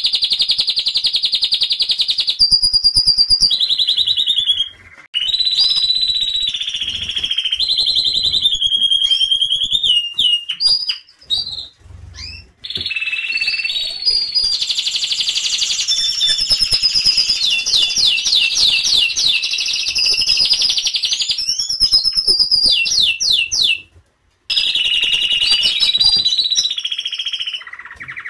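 Domestic canaries singing: long, fast songs of rapid repeated-note trills and rolls, with a few short breaks between phrases.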